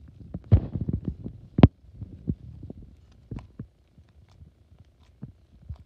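Slime being stretched and squeezed by hand, giving irregular wet clicks and pops. They come thick in the first two seconds, with the sharpest pop at about one and a half seconds, then thin out to scattered ones.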